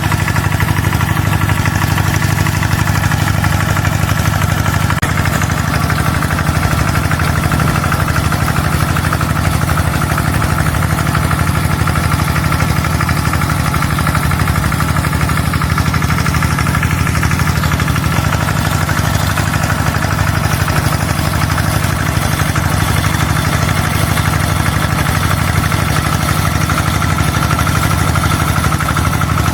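Small engine of a homemade rice-field sprayer running steadily at an even speed.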